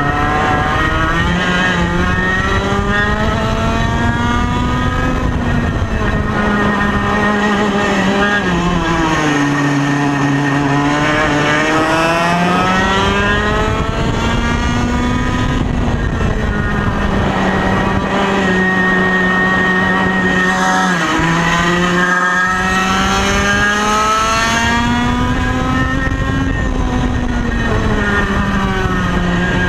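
Single-cylinder 100cc two-stroke kart engine (a 1995 Ital Sistem SL21 with an old TKM exhaust) running hard on track at around 12,000–14,000 rpm. It makes a high, buzzing note that falls as the kart lifts for corners and climbs again as it accelerates, with the deepest drop about ten seconds in.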